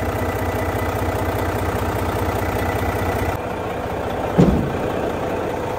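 Volvo semi truck's diesel engine idling steadily. About four seconds in there is a single short thump as the hood is pushed shut and latched.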